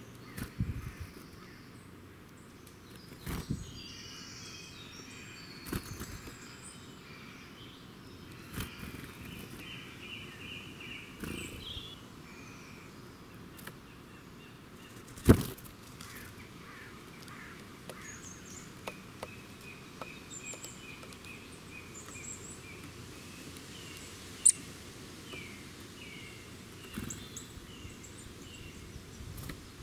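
Small birds singing and calling, with quick runs of repeated chirps and trills, over a steady outdoor background hiss. Sharp knocks break in every few seconds, the loudest a little past halfway.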